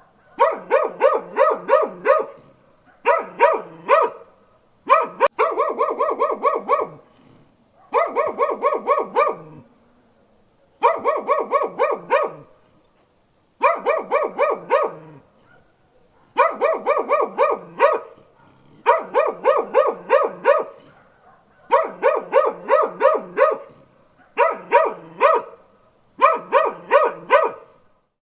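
A dog barking in quick runs of several short barks each, the runs broken by pauses of about a second.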